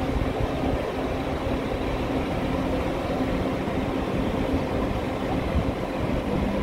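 Diesel engine of a Mercedes-Benz O-500RSD double-decker coach running steadily as the coach pulls slowly away across the yard, a continuous engine drone with a low hum.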